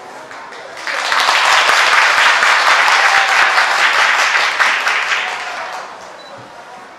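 Concert audience applauding, swelling up suddenly about a second in and dying away after about five seconds.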